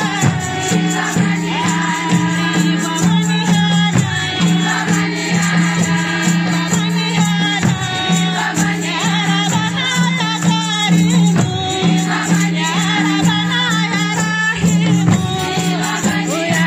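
A group of women singing together, accompanied by hand-beaten frame drums and rattling percussion.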